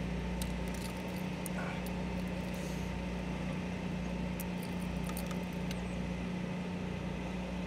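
A steady low motor hum, with a few faint clicks over it.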